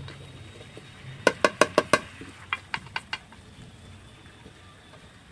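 A spoon knocking against the cooking pot as chicken is stirred in the pan: a quick run of about five sharp clacks about a second in, then a few lighter knocks.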